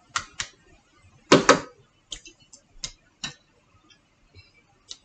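Tableware clattering: a string of sharp clicks and knocks from chopsticks and a plate being handled. The loudest is a double knock about a second and a half in, followed by lighter clicks.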